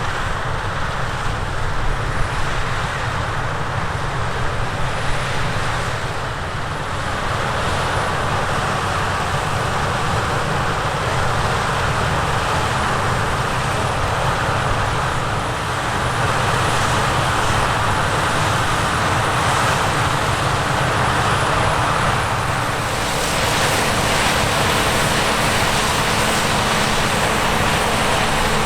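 Heavy diesel harvest machinery running steadily at work: a continuous engine and machine noise that shifts in level a few times.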